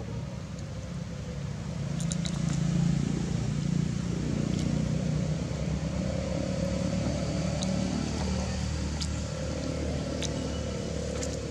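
Low, steady rumble of an engine running nearby, swelling about two seconds in and then holding, with a few faint clicks over it.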